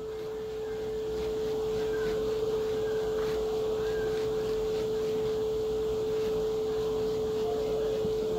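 A steady, unwavering mid-pitched tone, like an electrical whine, with faint light scraping from a spoon stirring tomato sauce in a stainless steel pot.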